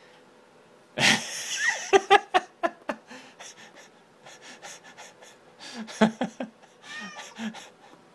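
A cat scrambling on a stepladder: a burst of scuffling about a second in, then a quick run of knocks and clatters as it climbs, with a short meow near the end.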